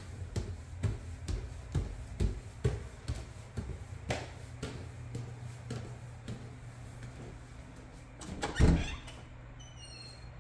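Footsteps climbing wooden stairs, about two steps a second, then softer steps along a hallway floor, over a steady low hum. A louder thump comes about eight and a half seconds in.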